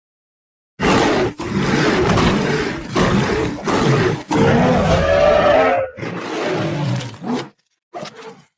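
Monster roar sound effects, deep and growling with a wavering pitch: after a brief silence, a run of long roars with short breaks between them, then one short roar near the end.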